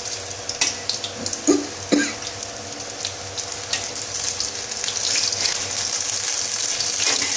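Batter-coated pumpkin flower fritters sizzling and crackling in hot mustard oil in a kadai, with a few knocks of the spatula against the pan in the first two seconds as they are turned over. The sizzle grows denser from about five seconds in.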